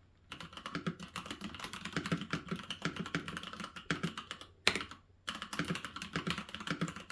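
Rapid typing on a computer keyboard, a fast run of key clicks. About two-thirds of the way through, one louder single keystroke comes, followed by a brief pause before the typing resumes.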